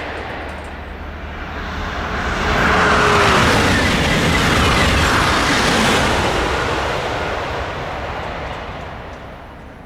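TGV high-speed train passing at speed with a rushing whoosh that builds, holds for a few seconds, then fades away. A short falling tone sounds as it goes by.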